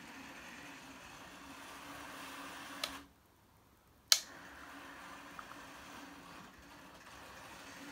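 Faint steady hum of a model train running on its track, with a click, then about a second of near silence in the middle ended by a sharp click, after which the hum carries on.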